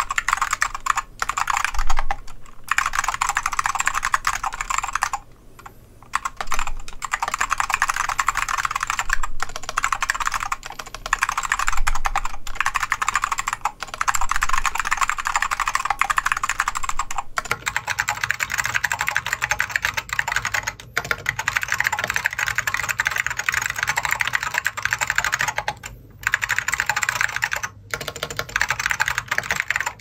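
Continuous fast typing on an ai03 AEK Lunar keyboard with lubed, tape-modded Alps Salmon switches and Apple Extended Keyboard II keycaps: a dense stream of thocky key clacks, with brief pauses about five and twenty-six seconds in. About seventeen seconds in the tone changes as the recording switches from a studio microphone to a phone's microphone.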